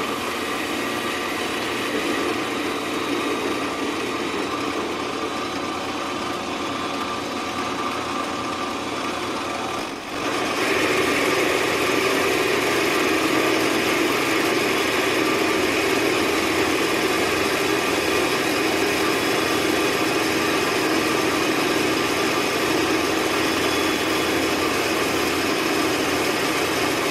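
Small benchtop metal lathe running steadily while its tool faces and turns a hot-rolled 4140 steel bar, the motor and gearing making a steady machine whine. About ten seconds in it dips briefly and then grows louder.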